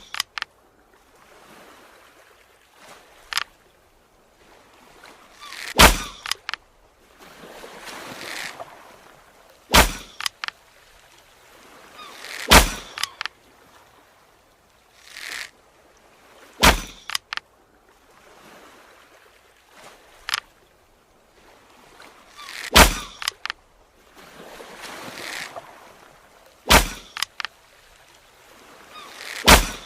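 Bow-and-arrow sound effects: a swelling whooshing hiss ending in a sharp snap, repeated about seven times at uneven gaps of three to six seconds, with a few fainter clicks between.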